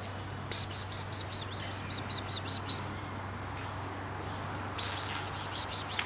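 A songbird chirping in two quick runs of short high notes, about six a second, the first starting about half a second in and the second near the end, over a steady low hum.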